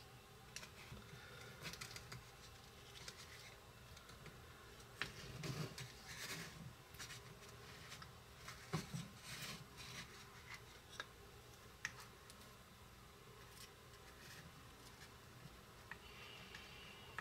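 Faint, scattered scraping and light clicks of a metal utensil worked around the inside edge of a small metal pie pan, loosening the baked pie so it will come out.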